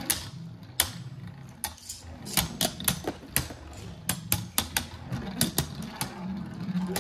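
Two Beyblade Burst spinning tops, Right Artemis and Dusk Balkesh, battling in a plastic Hypersphere Beystadium: a steady low whirr broken by sharp, irregular clacks as the tops collide and knock about the stadium, often several in quick succession.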